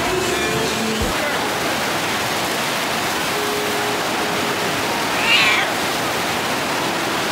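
A FlowRider surf simulator's pumped sheet of water rushing steadily over the riding surface. About five seconds in, a person's short high-pitched squeal rises over it.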